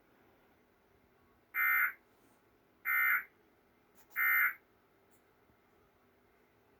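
Emergency Alert System end-of-message data tones: three short, buzzy digital bursts about a second apart, signalling that the alert has ended.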